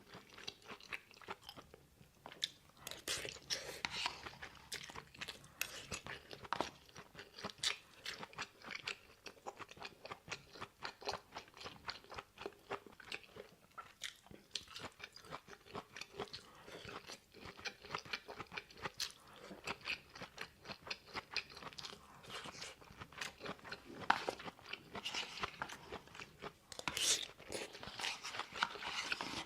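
A person chewing food close to the microphone, with a steady run of small crunches and mouth clicks and a few louder bites near the end.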